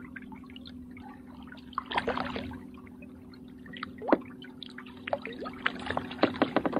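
A hooked kokanee salmon splashing at the water's surface beside a kayak as it is led to a landing net, with a few scattered splashes early on and a quick run of sharp splashes near the end. A steady low hum runs underneath.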